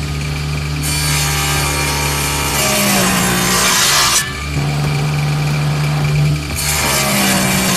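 Table saw running with a steady motor hum. It cuts through a small wooden block twice, each cut a loud rasping stretch: the first from about a second in to about four seconds, the second starting near the end.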